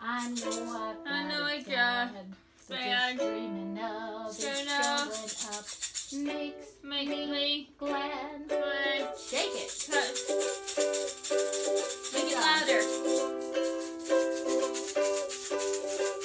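Ukulele strummed with a hand shaker rattling in rhythm, and voices singing over it.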